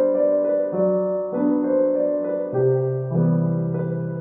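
Background music: a soft piano playing slow, sustained chords that change about once a second.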